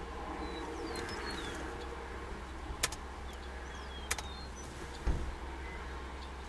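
Open-air ambience: a steady low rumble with a few short bird chirps, two sharp clicks near the middle and a dull thump about five seconds in.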